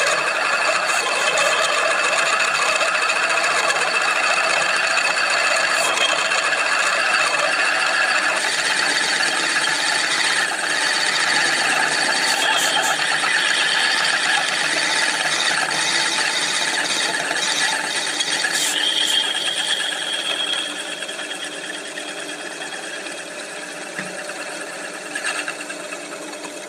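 A power drill boring a hole in a metal plate: a steady, loud grinding whir with a high squeal from the cut. It becomes clearly quieter about twenty seconds in.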